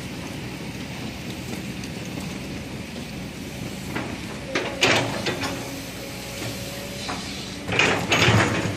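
Construction work: a steady background noise, broken by sharp knocks and clanks about four to five seconds in and again near the end, some of them leaving a brief ringing tone.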